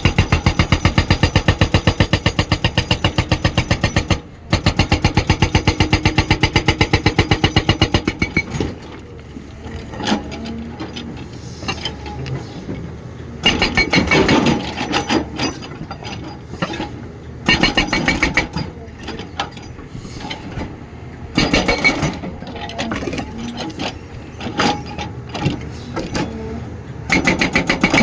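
Hydraulic rock breaker (ME-8100) on a Cat 323D3 excavator hammering rapidly at rock for about eight seconds, with a brief pause near four seconds. After that the excavator's diesel engine runs between short bursts of hammering every few seconds.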